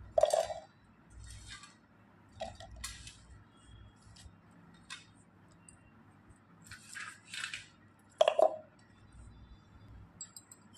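Green chillies, coriander and garlic cloves dropped by hand into a stainless-steel mixer-grinder jar: sharp clinks against the steel that ring briefly, a loud one near the start and another about eight seconds in, with softer rustles and taps between.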